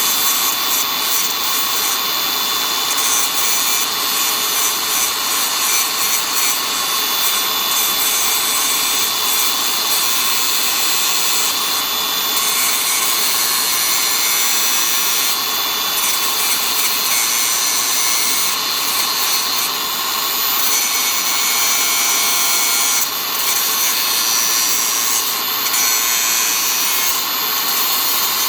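Small handheld grinder running steadily and grinding away a raised lump of material, a continuous grinding noise with a thin high whine over it.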